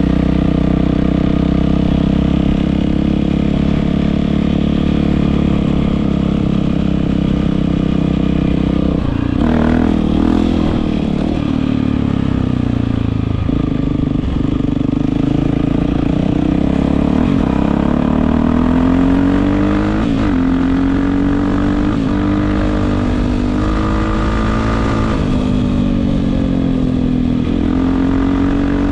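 Yamaha WR450F's single-cylinder four-stroke engine through an Akrapovič exhaust, running at a steady pitch for about nine seconds, then rising and falling in pitch again and again as it is revved.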